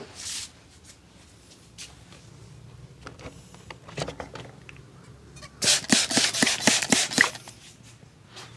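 A barber's hands rubbing and lightly tapping during a massage, with scattered soft clicks. Just past halfway comes a quick run of sharp hand slaps, about six a second, lasting under two seconds.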